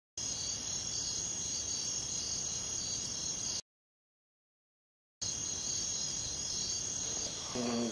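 Crickets chirring steadily, cut to dead silence for about a second and a half midway, then resuming.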